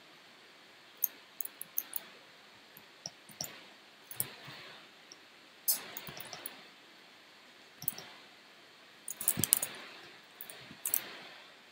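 Scattered sharp clicks in loose clusters, some trailing into a short scratchy rub, from computer input (mouse, keys and pen tablet) while working in Photoshop, over a faint steady hiss.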